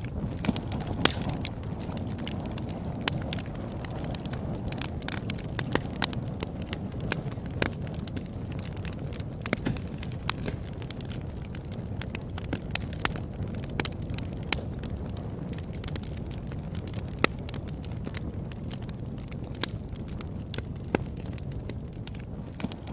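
Crackling noise bed of a subliminal track: a steady low rumble under irregular sharp pops and crackles, a few louder than the rest.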